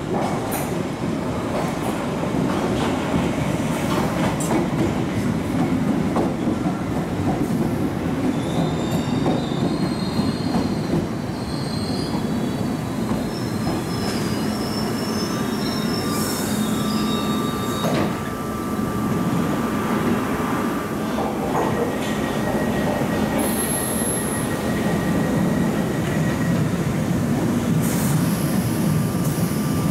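London Underground Piccadilly line 1973 Stock tube train running into the platform and braking to a stop, its wheels rumbling on the rails and squealing high-pitched partway through.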